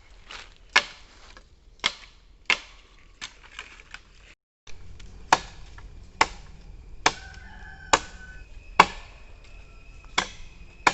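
Blade hacking into a bamboo stem, about a dozen sharp chopping blows roughly a second apart, with a short break near the middle. A rooster crows in the background.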